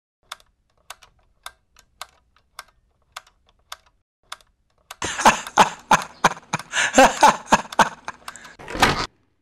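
Sharp, evenly spaced clicks, about two a second, like a clock ticking; then, about five seconds in, a loud burst of a man's wild laughter in quick pulses for about four seconds, stopping abruptly.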